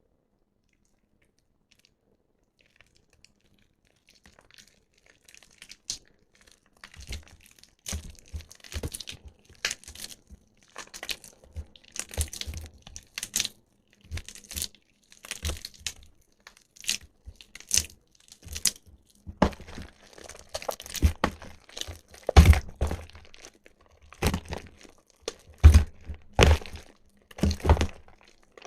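Soaked bar soap being squeezed and crushed by hand, giving irregular crackling, squishy crunches. It starts after about five seconds of near silence and grows denser and louder in the second half.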